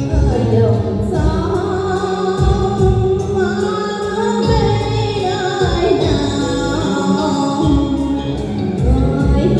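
Vietnamese tân cổ music: a long, drawn-out sung melody over band accompaniment with a steady bass beat.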